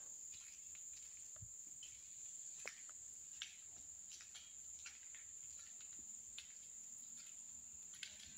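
Faint, steady high-pitched chirring of insects, with scattered soft ticks and scuffs.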